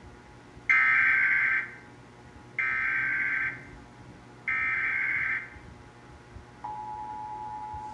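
Emergency Alert System SAME header: three bursts of buzzy digital data tones, each just under a second long, the first the loudest, encoding a Required Monthly Test. Near the end the steady two-tone EAS attention signal begins.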